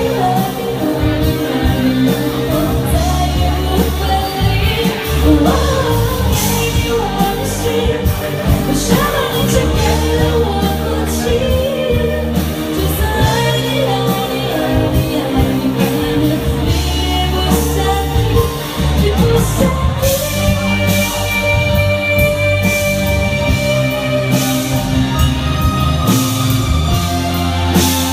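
A singer performs a pop song live with a band and a steady bass line. The voice drops out about two-thirds of the way through, leaving an instrumental passage of held notes.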